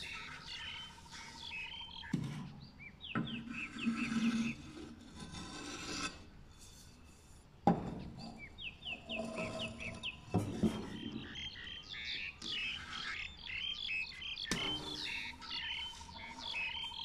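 Small birds chirping in quick runs of short falling notes, in recordings spliced together with abrupt cuts. A thin steady tone sounds at the start and again near the end.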